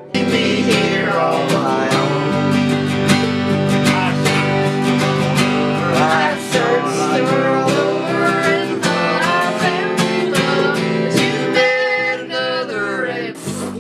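Acoustic guitar strummed and picked in a country-style tune, breaking off briefly near the end.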